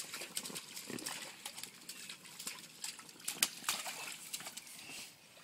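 A toddler's feet kicking and splashing water in a shallow inflatable paddling pool: quick, irregular splashes, the loudest about three and a half seconds in.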